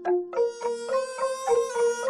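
Background music: a melody on a plucked string instrument in a traditional style, with notes plucked about four times a second.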